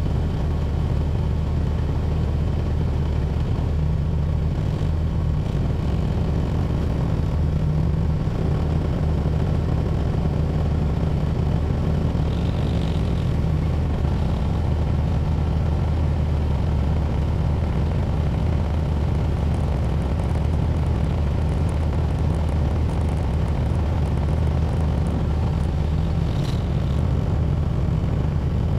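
Tractor engine running at a steady speed while plowing snow, a constant low engine note throughout, with a couple of faint brief clicks.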